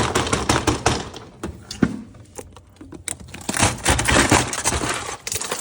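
Ice cubes clattering and cracking against each other and a hard surface as they tumble out of an American-style fridge's ice maker. They come in two spells of dense rattling, the second starting about three seconds in.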